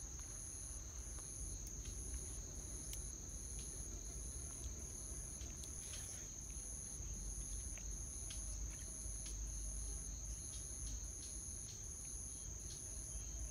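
Insects chirping steadily: one continuous high trill with a second, higher chirp pulsing about twice a second, over a low rumble.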